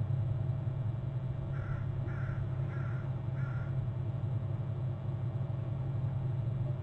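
A bird cawing four times in an even series, about two calls a second, over a steady low hum.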